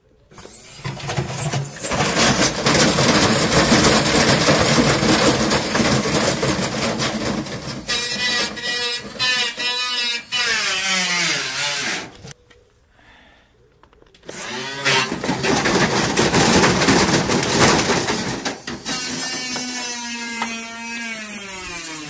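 Front-loading washing machine spinning with a brick in its drum, the whole cabinet banging and rattling violently from the unbalanced load. About halfway through, the motor's whine falls in pitch as the drum slows. After a short lull the banging starts again, and near the end the motor winds down once more with a falling whine.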